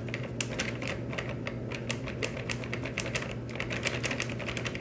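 Plastic pouch of plaster powder crinkling as it is shaken and squeezed to empty the last powder into a plastic cup: a fast, irregular crackle of small clicks.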